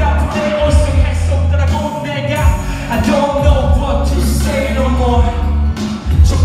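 Live hip-hop performance through a club PA: vocals into a handheld microphone over a backing track with a heavy, pulsing bass beat.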